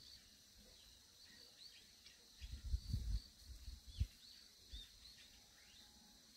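Small birds chirping in many short, falling notes over a steady high insect drone. Low rumbles come in a cluster between about two and a half and four seconds in.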